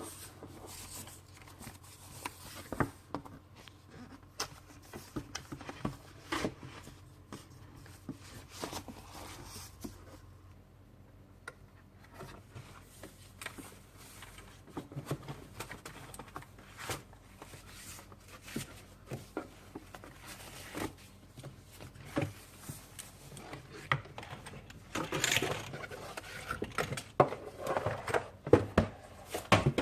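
Hands opening and handling a keyboard's cardboard box and its packaging: scattered light clicks, taps and scrapes, with a denser burst of rustling and knocks in the last few seconds.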